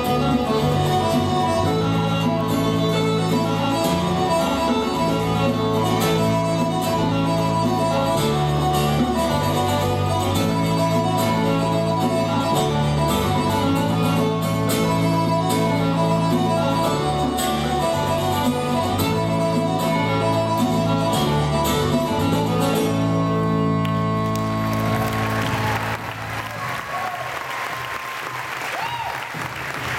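Instrumental music with a stepping bass line and a regular beat, which ends about 25 seconds in. Audience applause follows the music's end.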